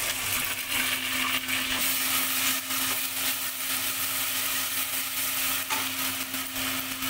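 Ground masala paste sizzling in hot oil with fried onions in an aluminium pot, a spatula stirring and scraping it through. A steady low hum runs underneath.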